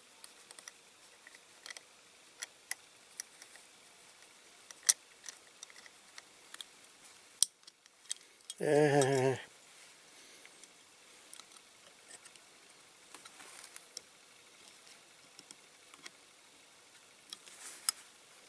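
Small clicks and taps of diecast model parts and tools being handled and fitted together, with a brief wavering vocal sound about nine seconds in.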